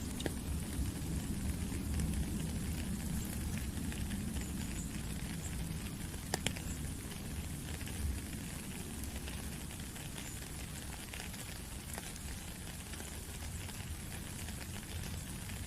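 Steady rain falling, with individual drops ticking and a low, uneven gurgle of running water underneath; a couple of sharper drop hits about six seconds in.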